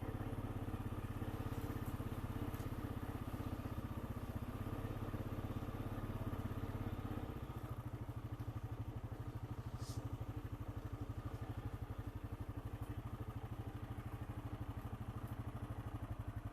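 Honda Rancher 420 ATV's single-cylinder engine running at low speed, a steady pulsing drone that eases off a little about halfway through.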